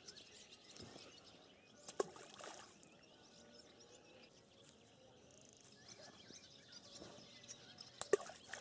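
Balls of porridge groundbait thrown into the river, plopping into the water: one splash about two seconds in and a louder one near the end.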